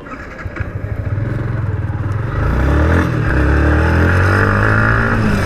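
Motorcycle engine pulling away and accelerating, its pitch rising as it gathers speed and growing louder about two seconds in.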